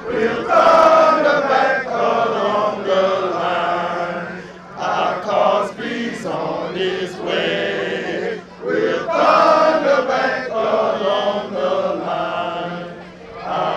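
A group of men chanting together in unison, in phrases broken by short pauses about every four seconds.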